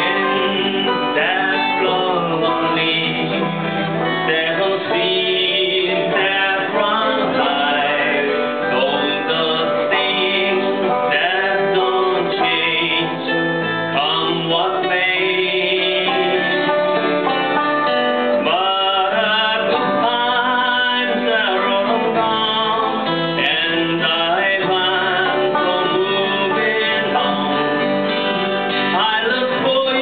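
Two acoustic guitars strumming a folk song, with sung vocals over them.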